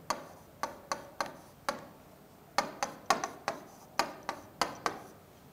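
A marker writing on a whiteboard: about fourteen sharp taps of the marker tip against the board, irregularly spaced, with a short pause near the middle.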